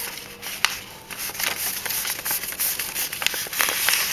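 A sheet of paper rustling as hands fold it and press the crease, with several sharp crackles of the paper among the rustle.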